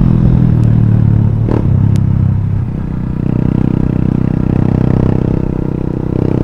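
Yamaha FZ's single-cylinder engine running through an aftermarket Akrapovič-replica exhaust while the bike is ridden at steady throttle, heard from the rider's helmet. The engine note changes about halfway through.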